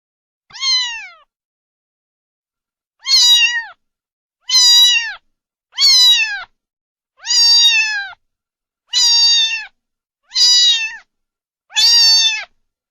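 Domestic cat meowing over and over: eight meows about a second and a half apart, the first softer than the rest, each one dropping in pitch at its end.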